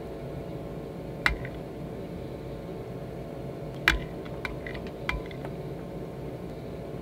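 A few sharp clinks of dishes, four in all, the loudest about a second and four seconds in, over a steady low hum like a running appliance fan.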